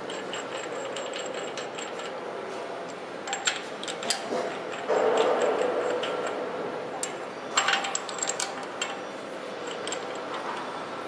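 Sharp metallic clinks and taps of steel bolts against a granulator's rotor knife and clamp as the knife is refitted by hand, with a quick run of clinks about eight seconds in.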